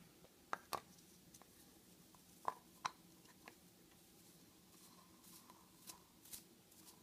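Near silence broken by a few faint clicks and taps of hand handling as a round nylon duct-cleaning brush is fitted onto a rotary tool head: two quick pairs in the first three seconds, then a few softer ones.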